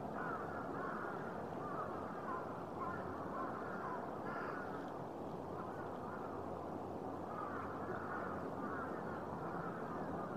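A number of birds calling over and over in short, overlapping arched calls, with a steady low hum underneath.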